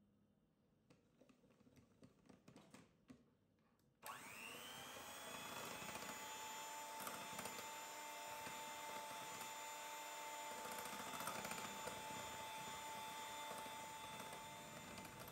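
After a few faint clicks, an electric hand mixer switches on suddenly about four seconds in. It then runs steadily with a constant motor whine, beating cake batter.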